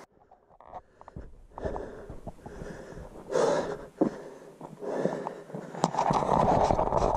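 A person breathing in uneven rushes, with a low rumbling noise on the microphone and a few small clicks.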